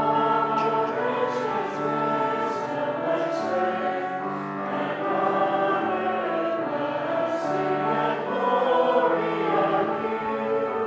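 A choir singing in slow, held chords, with the low notes changing about once a second.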